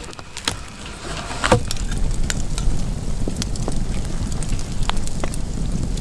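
Open wood fire crackling, with scattered sharp pops over a steady low rumble. About a second and a half in comes one louder knock with a short ring.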